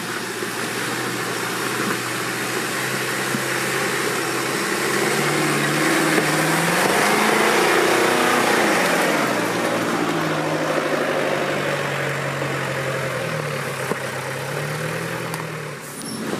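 Off-road 4x4's engine working under load, revving up and easing off twice, with the loudest climb in the middle and a broad rush of noise alongside it.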